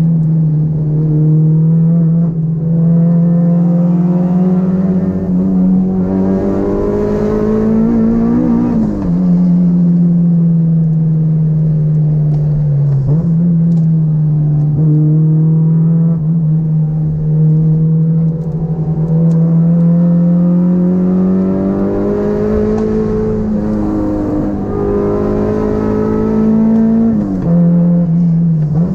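Honda Integra DC2's four-cylinder engine heard from inside the cabin, pulling steadily under load with its pitch slowly climbing. Three times the revs drop sharply before climbing again.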